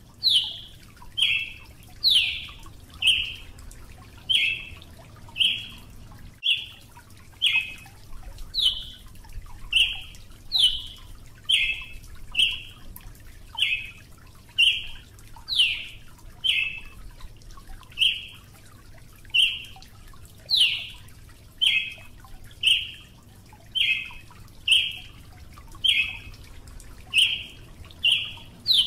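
Brazilian tanager calling: a long, evenly paced series of short, sharp call notes, about one a second, with every few notes starting higher and slurring downward.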